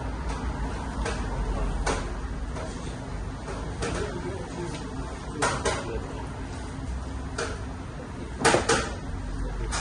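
Handling knocks of a drink can and tableware on a table, a few short knocks spread out over a steady low hum, the loudest a quick double knock near the end as the can comes back down.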